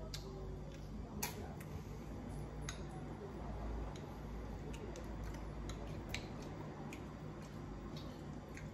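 Eating sounds during a gelato meal: light, irregular clicks and taps about once a second, over a steady low hum.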